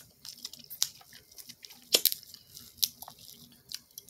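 Shells of boiled shellfish being cracked, torn and peeled by hand, with several sharp cracks and some crunching and chewing between them.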